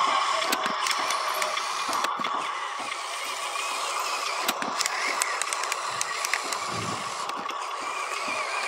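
Electric motor and gearbox of a Huina radio-controlled dump truck whining steadily as it drives loaded over dirt, with scattered crackles and clicks from its tyres rolling over grit and twigs.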